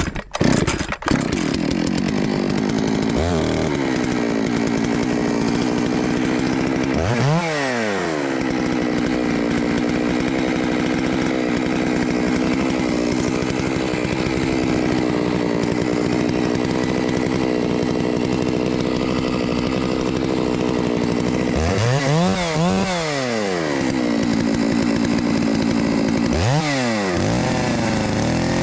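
Holzfforma G660 92cc two-stroke chainsaw running steadily just after starting. It is revved up and back down once about a quarter of the way in and three times in quick succession near the end.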